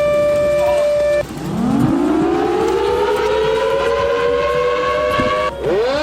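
Tornado warning siren wailing: a steady tone that breaks off about a second in, then a long, slow rising wind-up, which breaks off again near the end and starts rising once more.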